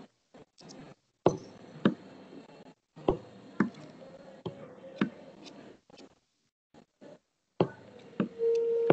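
Scattered sharp knocks and clicks, about half a dozen, over a faint room background that cuts in and out to dead silence, as a video call's noise suppression does; near the end a steady tone holds for about a second and a half.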